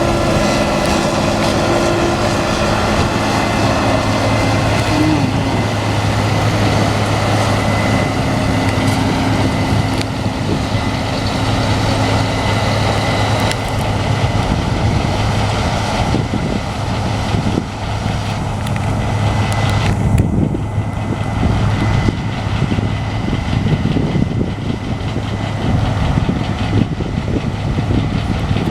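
Large diesel harvest machinery running steadily with a continuous engine hum.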